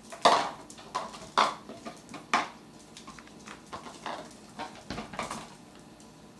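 A small plastic dog bowl clattering against a vinyl floor as a puppy carries it in its mouth and drops it. It makes a run of sharp knocks, the loudest in the first two and a half seconds, then lighter taps.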